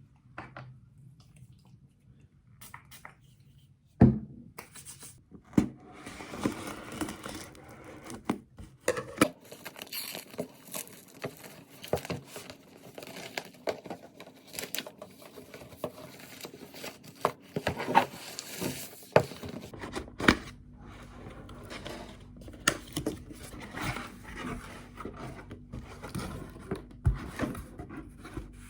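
Packaging being handled at close range: irregular tearing and crinkling, with scattered clicks and knocks. A sharp knock about four seconds in is the loudest sound.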